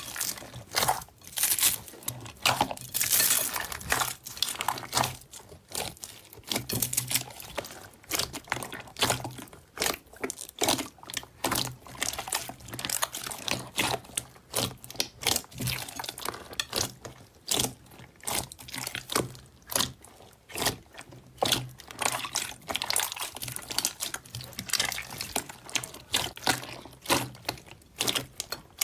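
Hands kneading and squeezing a large mass of soft pale-blue slime mixed with foam beads: wet squelches with dense, irregular crackling clicks as the slime stretches and the beads are pressed.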